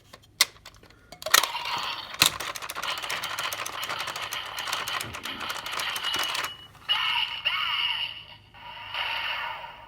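Plastic clicks as a gear is set into the DX Zenkai buckle toy belt and turned, followed by the buckle's electronic transformation sounds and music, thin through its small built-in speaker, in two stretches with a short break about two-thirds of the way through.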